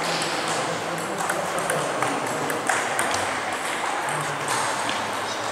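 Table tennis rally: the ball clicking sharply off the bats and the table, about two hits a second.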